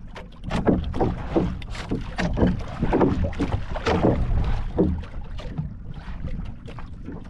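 Water slapping and splashing against the hull of a small outrigger boat in quick, irregular strokes, busiest for the first five seconds and easing off near the end, over wind rumbling on the microphone.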